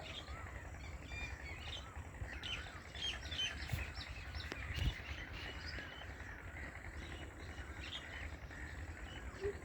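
Background forest ambience: small birds chirping in short, high, scattered notes over a steady low rumble. No deep coucal hooting in this stretch.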